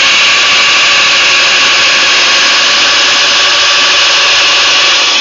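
Festool Domino DF 700 joiner's motor running at full speed as it plunge-cuts a mortise in timber, with the dust extractor drawing through its hose; a loud, steady mechanical whine.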